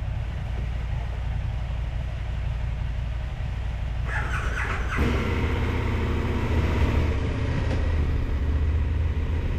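KTM adventure motorcycle twin-cylinder engines idling steadily at close range. About five seconds in, the sound grows fuller and a little louder.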